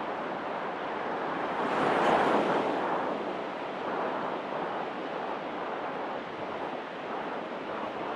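Low surf washing in on the shore, a steady rush that swells louder about two seconds in, with wind on the microphone.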